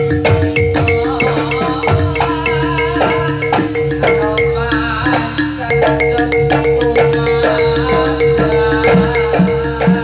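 Live jaranan gamelan music: drums keeping a busy rhythm under rapid struck metallophone notes, with a steady held tone throughout.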